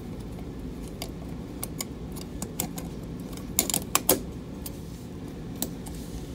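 Light metallic clicks and clinks of small metal parts being handled and fitted by hand, with a cluster of louder clicks at about three and a half to four seconds. A steady low hum runs underneath.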